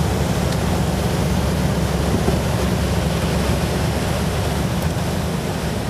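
Steady rushing noise of wind buffeting the microphone, with a deep rumble underneath and a lighter hiss above.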